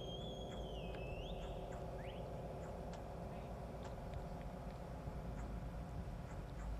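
A high whistling tone sliding up, wavering and rising again, ending about a second and a half in, followed by a brief rising chirp, over a steady low hum with scattered faint ticks.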